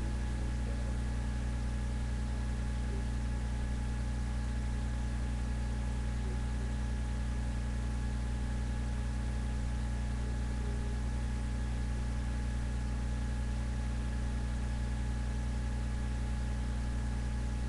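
A steady low hum with a faint hiss over it, unchanging throughout, with no voice or music.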